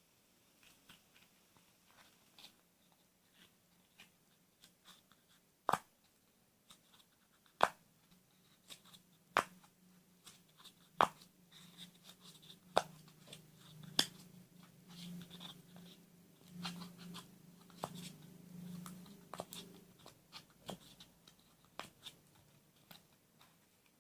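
Faint, irregular clicks and taps, a few sharper ones spaced a second or two apart, with a low hum in the middle stretch.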